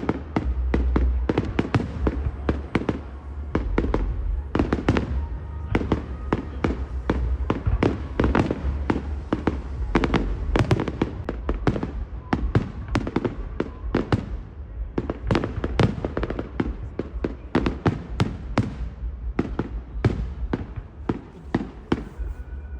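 Fireworks display: a rapid, continuous run of bangs and crackling bursts, several a second and often overlapping.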